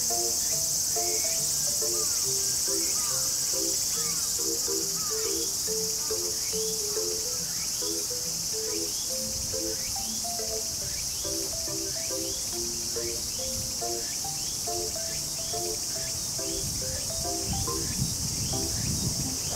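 A steady, high-pitched chorus of crickets and other insects. Faint background music with short low notes plays underneath.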